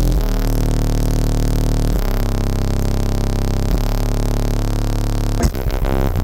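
A wall of twelve Resilient Sounds Gold V2 15-inch subwoofers playing loud, deep sustained bass notes that step to a new pitch every couple of seconds. A short sharp crack comes about five and a half seconds in.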